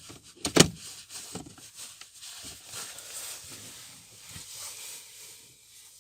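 Plastic cabin-air-filter cover behind a Kia Rio's glovebox being fitted back into its slots: a sharp plastic click about half a second in, with a few lighter taps, then plastic rubbing and scraping.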